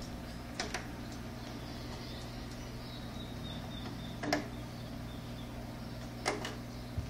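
Steady low mains hum from a stereo hi-fi system with no music playing, with a few light clicks.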